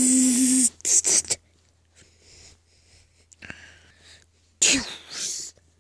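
A person's voice making breathy, hissing mouth noises: a loud hiss over a held hum for about a second at the start, two short puffs, then a louder breathy burst that falls in pitch near the end.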